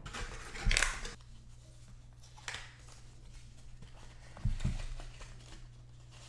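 Product packaging being handled: a short rustle of plastic and card about a second in, a fainter rustle, then a light knock about halfway through, over a faint steady low hum.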